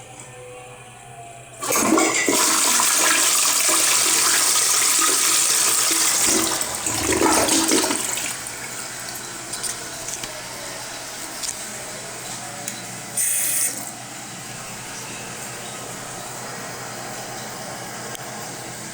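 A 2003 Crane Plumbing toilet flushing. A sudden loud rush of water starts about a second and a half in and surges again around seven seconds. It then drops to a quieter steady running of water as the toilet refills, with one brief hiss partway through.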